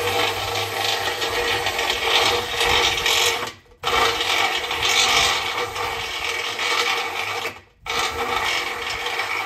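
Cordless drill with a gold drill bit boring through an aluminium gate post, enlarging a pilot hole. It runs in three spells with two short pauses and stops near the end.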